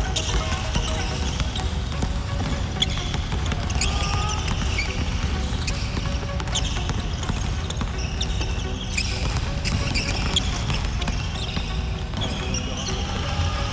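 Many basketballs bouncing irregularly on a hardwood gym floor as players dribble and pass, mixed with electronic background music with a steady bass.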